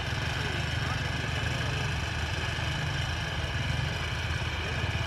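Rice combine harvester running steadily: a constant engine drone with a steady higher whine above it.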